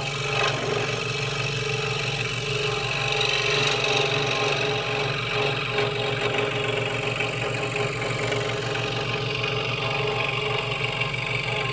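Scroll saw running, its blade cutting steadily through a wooden board as the workpiece is turned gently round to follow the line.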